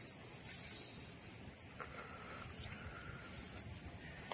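Insects chirping in a steady train of short, high-pitched pulses, about four a second, over a low steady rumble.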